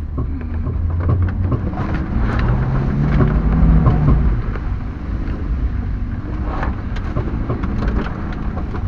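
Car driving on a rutted mud road: a steady low engine rumble with knocks and rattles from the body over bumps. The engine note rises for a moment around three seconds in.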